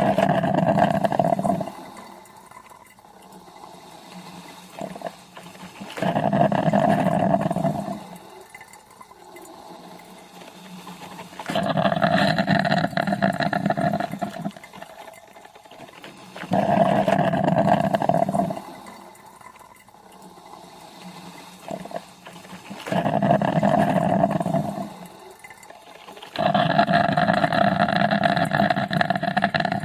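Coffee maker brewing, gurgling and hissing in bursts of about two seconds every five to six seconds as hot water is pushed through, with a quieter bubbling between. The last burst, near the end, runs longer.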